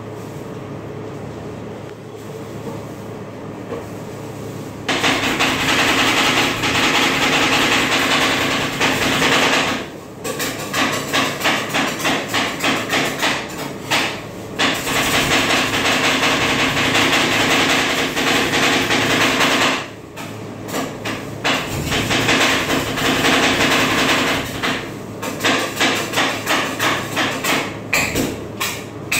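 Two steel spatulas chopping and scraping fast against the frozen steel plate of an ice cream roll machine, mashing marshmallows into the setting ice cream mix. A low steady hum comes first; the rapid clatter starts about five seconds in, stops briefly a few times and turns into separate rhythmic taps in places.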